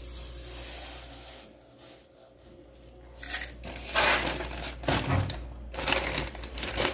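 Dry raw rice pouring into a cup with a steady hiss, then a plastic rice bag crinkling and rustling in several short bursts.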